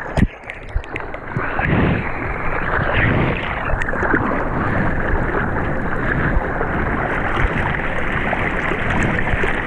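Sea water rushing and splashing close around a surfboard moving through the water, heard from a waterproof action camera at the water surface, with a few sharper splashes against it.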